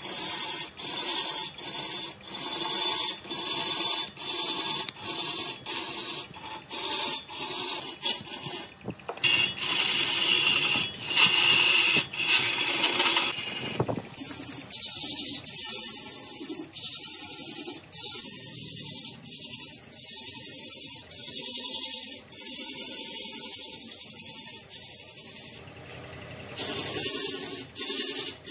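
Woodturning on a lathe: a tool or abrasive scraping the spinning wood with a hissing rasp. It comes in short stretches with frequent brief stops.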